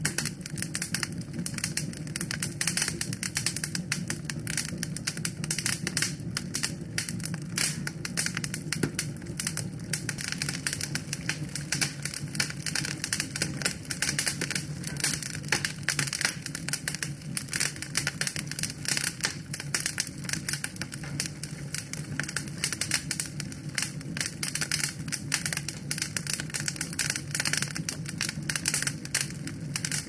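Wood fire burning in a fireplace and crackling: a dense, irregular stream of small pops and snaps over a low, steady sound of the flames.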